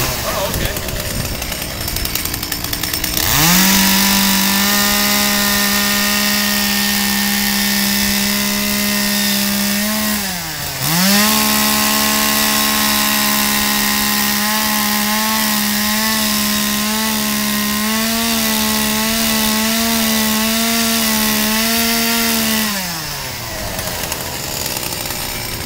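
Small two-stroke carving chainsaw revved from idle to full throttle about three seconds in and held at a steady high pitch while cutting into a wooden log. It dips briefly about ten seconds in, wavers slightly under the load of the cut, and drops back to idle near the end.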